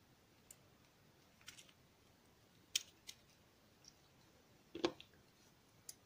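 A handful of faint, sharp clicks and taps from a Habo oval lock cylinder being gutted, its core pushed out of the housing with a plastic follower. The loudest click comes about five seconds in.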